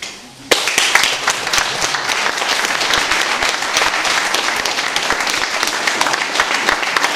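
A group of people applauding with hand claps, breaking out suddenly about half a second in and continuing steadily.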